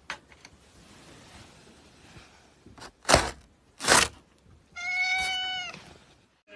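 Two short sharp noises about a second apart, then a domestic cat gives one long, even meow.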